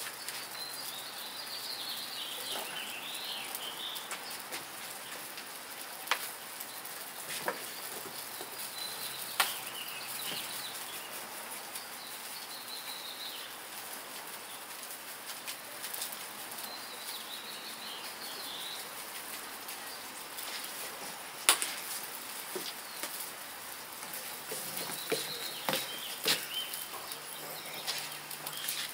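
Birds chirping now and then over a steady hiss of beef sizzling on a grill. A few sharp pops come from the fire.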